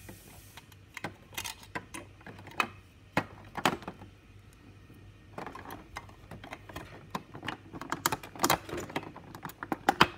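Hollow plastic parts of a scale model airliner clicking and knocking as the tail fin is pressed onto the fuselage by hand. There are scattered taps at first, then a quick run of clicks from about halfway through.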